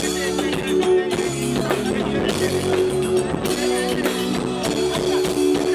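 A live band playing through a PA during a sound check: drums keep a steady beat under held bass and keyboard notes, with guitar on top.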